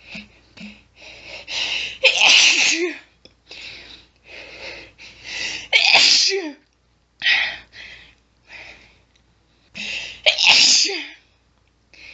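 A woman's rapid sneezing fit: several loud sneezes in quick succession, separated by short hitching, catching breaths as the next sneeze builds. The strongest sneezes come about two, six and ten seconds in.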